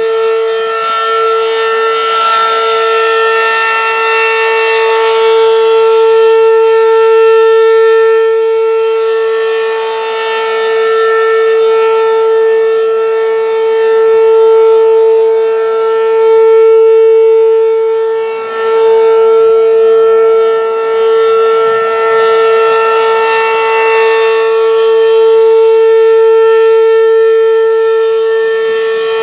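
ACA P-15 electromechanical outdoor warning siren sounding its Alert signal: one steady, unwavering pitch, swelling and fading in loudness every several seconds as the rotating head sweeps past.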